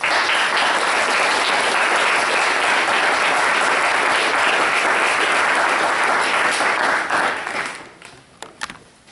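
Audience applauding steadily for about seven and a half seconds after a talk ends, then dying away, with a few last scattered claps.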